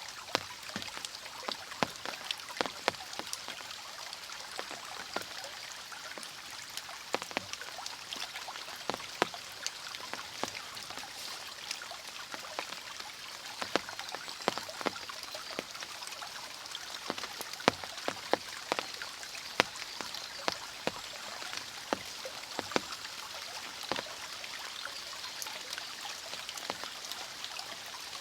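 Mountain stream flowing with a steady rushing hiss, scattered with many sharp drips and splashes at irregular moments.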